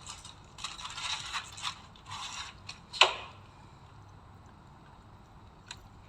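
Packaging rustling and scraping as boxed chocolates are handled and shifted around, ending in one sharp knock about three seconds in.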